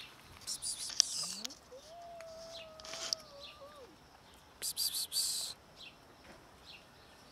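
A cat meows once, a long drawn-out meow that rises at the start, holds a steady pitch for about two seconds and drops at the end. Short hissy noise bursts come just before the meow and again about a second after it.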